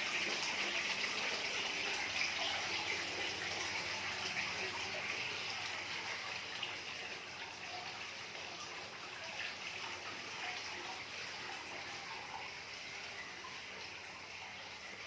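Running water splashing in a steady rush, fading gradually.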